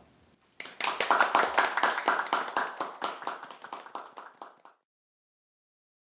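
Hand clapping, starting about half a second in as a dense patter of claps that tapers away over about four seconds and then cuts off.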